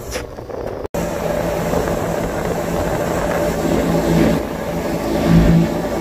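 An engine running steadily, swelling louder briefly a couple of times, heard after a sudden break in the sound about a second in.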